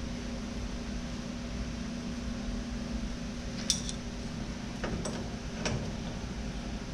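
A few light metallic clinks, four within about two seconds midway, from a wrench and brake-line fittings being worked, over a steady background hum.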